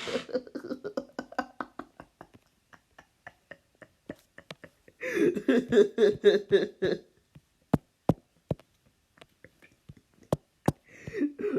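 A person's voice making wordless sounds in short stretches, the loudest about five to seven seconds in and another near the end, with scattered sharp clicks between them.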